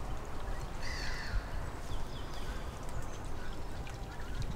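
Lakeside ambience: a low rumble of wind on the microphone, with a faint waterfowl call about a second in and a few faint bird chirps after it.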